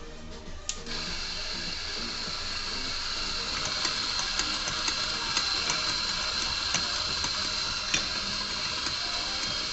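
Electric espresso grinder switched on about a second in, then running steadily as it grinds coffee beans into a portafilter: a high-pitched whir with a steady whine, and light clicks throughout.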